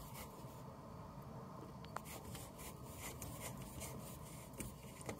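Faint rubbing and light clicking of a plastic bath trap nut being hand-tightened onto the bath waste thread, with one sharper click about two seconds in.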